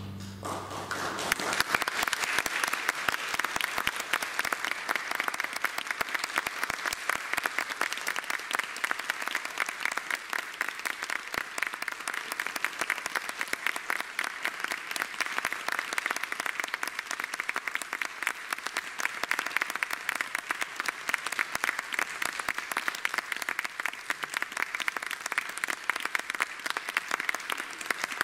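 Audience applauding steadily after a string orchestra's finished performance. The clapping starts right after the last chord stops and dies away near the end.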